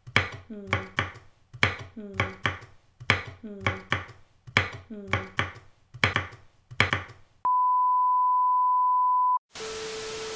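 Knife chopping vegetables on a wooden chopping board in quick, evenly repeated strokes. About seven and a half seconds in, this cuts off into a steady high test-tone beep lasting about two seconds, followed by a hiss of TV static with a low steady tone under it.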